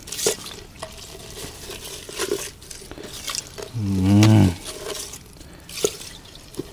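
A hand rummaging through live baitfish in a container of water: sloshing and splashing with small knocks and taps. About four seconds in, a man gives a short wordless hum.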